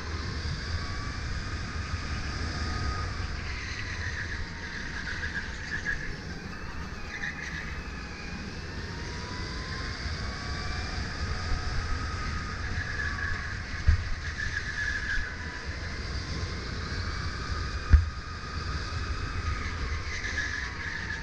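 Onboard sound of a Sodi RSX2 electric go-kart lapping: the electric drive's whine rises and falls with speed over a steady low rumble of tyres and wind. Two sharp knocks stand out, one about two-thirds of the way through and another a few seconds later.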